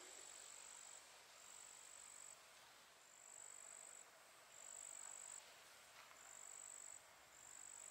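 Faint, high-pitched insect trilling that comes in steady bursts of about a second each, repeating every second and a half or so, over a light hiss.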